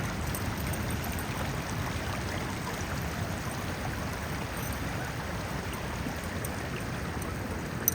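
Freshwater creek water running steadily, an even rushing wash with a brief click near the end.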